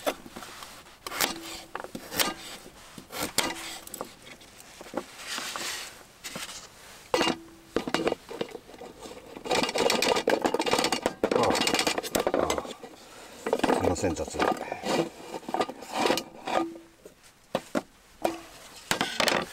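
Knife chopping vegetables on a wooden cutting board in short taps, then the chopped pieces scraped off the board into a metal pot with a rattling clatter about ten seconds in, followed by scattered knocks of kitchen things on the table.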